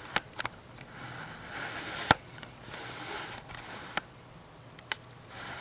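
Zoom ring of a DSLR lens being turned, picked up by the Nikon D3200's built-in microphone: a soft rubbing hiss in two stretches, with several sharp clicks, the loudest about two seconds in.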